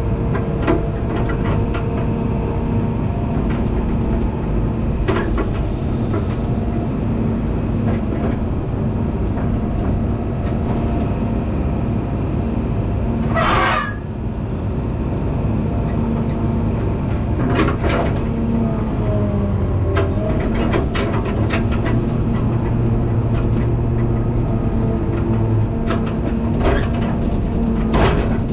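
Excavator's diesel engine running steadily under hydraulic work, its pitch shifting with load about twenty seconds in. Several metal clanks, the loudest and sharpest about halfway.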